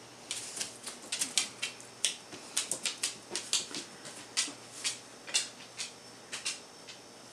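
A run of sharp, irregular clicks, roughly three or four a second, starting just after the start and stopping shortly before the end.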